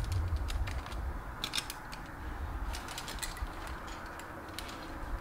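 Irregular light metallic clicks and clinks of climbing gear, carabiners and quickdraws knocking on the harness, over a low wind rumble that eases after the first second or so.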